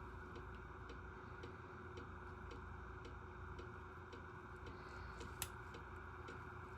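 Faint, regular ticking of a clock, about two ticks a second, over a steady low room hum, with one sharper click about five and a half seconds in.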